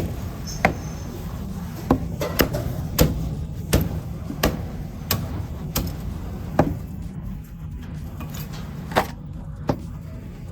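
Cleaver chopping roast meat on a chopping board: about a dozen sharp, loud chops, mostly two thirds of a second apart with a pause near the end, the board giving a banging 'bong bong' sound with each stroke.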